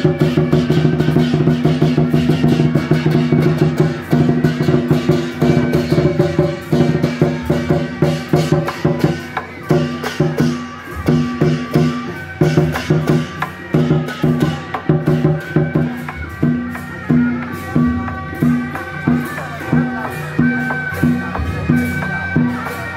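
Beiguan processional music: drums, gongs, cymbals and wooden clappers beat a steady rhythm under sustained pitched tones. The beat becomes more clearly pulsed, about one and a half strokes a second, in the second half.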